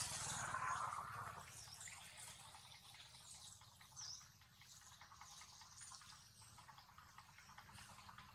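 Faint outdoor ambience with soft, irregular small clicks and one short high chirp about four seconds in. A brief, louder noise comes at the very start.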